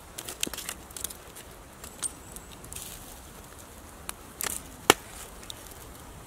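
Wood campfire crackling, with scattered sharp pops and one louder crack about five seconds in.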